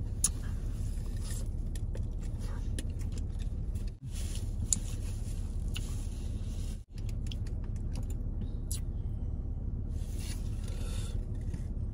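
Close-up chewing and small mouth sounds of someone eating a taco, with faint crackles of a paper napkin, over a steady low hum inside a car.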